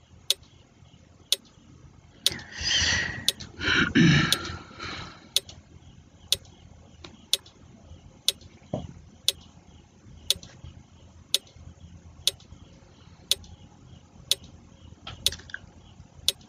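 Quiz countdown timer ticking like a clock, one sharp tick about every second. A louder, noisier sound runs for a couple of seconds near the start.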